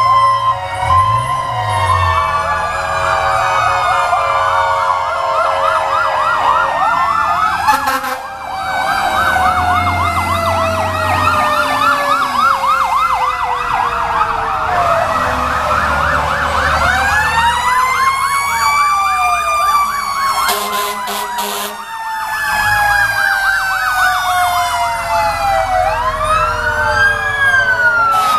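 Several fire engine sirens sounding at once as the trucks pass. Fast yelping warbles and slower wails rise and fall in pitch, all overlapping.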